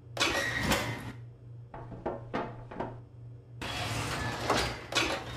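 Cartoon sound effects of an oven being loaded: a noisy sliding burst at the start, a few short swishes in the middle, and a longer sliding, clattering stretch near the end, as the oven door opens and a baking tray goes in.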